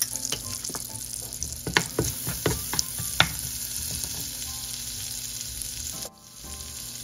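Butter sizzling in a steel pot with cumin seeds, black peppercorns and star anise, stirred with a wooden spatula. A few sharp clicks come about two to three seconds in, and the sizzle drops out briefly about six seconds in.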